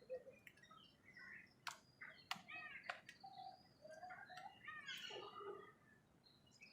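Faint chirps and calls of several birds, with a few sharp clicks around the middle and a busier cluster of calls about five seconds in.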